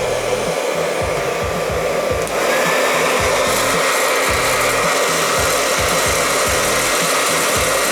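Hairdryer blowing steadily into a tin-can popcorn popper; a little over two seconds in, its sound steps up louder and a thin steady whine joins it.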